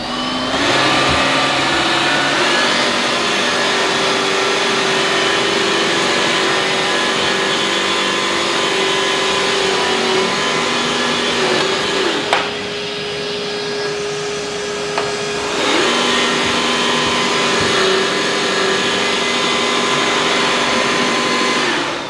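Makita DVC560Z 18 V cordless upright vacuum cleaner running, a steady motor whine with several pitched tones after spinning up at the start. About twelve seconds in there is a click and it goes quieter for a few seconds, coming back up about sixteen seconds in.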